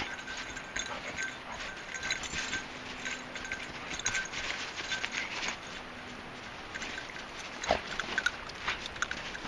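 Dogs snuffling with their noses down in snow, amid scattered short crunches and scrapes of snow as they dig and root about.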